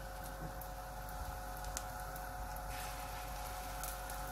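Gram-flour (besan) batter frying in hot oil on a tawa: a steady sizzle with a few small crackles, over a faint steady hum.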